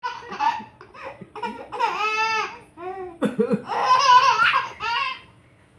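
A baby laughing at the sound of coughing, in a run of short, high-pitched bursts with one longer laugh in the middle.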